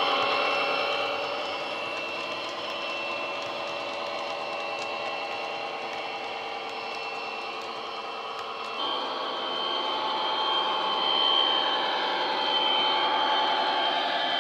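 Coastal DCC Class 57 diesel sound file playing through the EM1 and iPhone speakers of a Bachmann OO-gauge model locomotive: simulated diesel engine running with a high steady whine. About nine seconds in, the engine sound steps up louder and the whine jumps higher.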